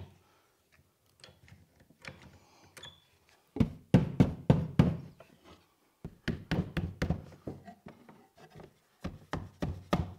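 Irwin Quick-Grip one-handed bar clamp being squeezed tight onto a plywood jig, giving sharp clacks and wooden knocks in several quick runs.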